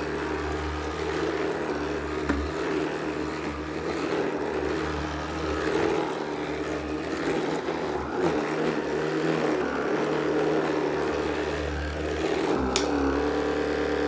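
Shark cordless sweeper's motor and brush roll running steadily as it is pushed over carpet, with a brief sharp click near the end.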